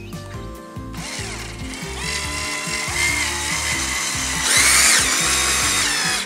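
Cordless drill/driver driving a screw through a vinyl rub rail into a boat's cap. The motor whine starts about a second in, rises in pitch in steps, is loudest about two-thirds through, and stops just before the end. Background music plays underneath.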